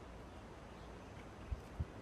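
Faint room tone with two short, dull low thumps about a third of a second apart near the end.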